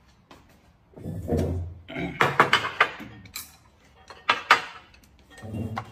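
Plates and chopsticks clinking and clattering on a glass tabletop as dishes of food are set down, the sharpest clinks between two and three seconds in and again about four and a half seconds in. A short low voice-like sound comes about a second in and again near the end.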